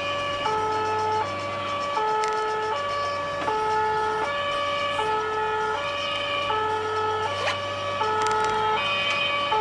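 Two-tone emergency vehicle siren of a fire brigade officer's car on an emergency run, alternating steadily between a low and a high note, each held about half a second. It is heard from inside the moving car over its engine and road noise.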